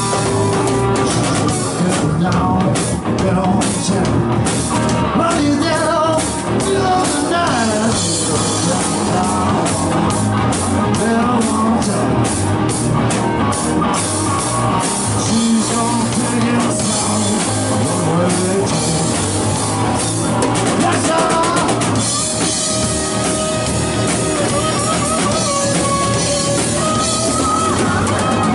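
Live rock band playing: electric guitar, electric bass and drum kit, with the drums hitting steadily throughout.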